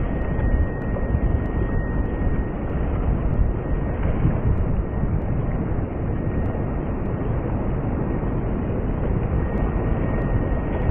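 Outdoor riverside city ambience: a steady, noisy low rumble with no distinct events, and a faint steady high tone coming and going.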